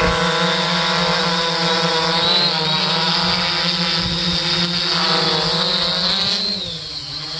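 3DR Solo quadcopter hovering close overhead, its four Emax MT2216 810KV brushless motors and Master Airscrew propellers giving a steady multi-toned hum. About six and a half seconds in, the pitch sags and the sound dips briefly before picking up again.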